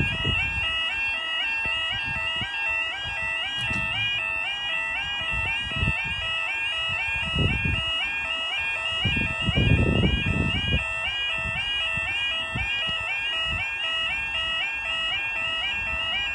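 Level crossing audible warning sounding continuously: a two-tone warbling 'yodel' alarm repeating in a steady, even cycle. It warns that the barriers are down and a train is approaching. A few low rumbles come through underneath, the loudest about ten seconds in.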